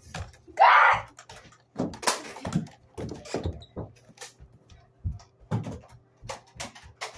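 Scuffling knocks and thumps of children moving about and landing on furniture in a small room, with a short loud rushing burst about half a second in.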